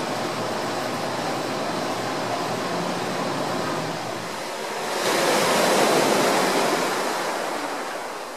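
Ocean surf washing on a beach: a steady hiss, then a wave swells up about five seconds in and dies away.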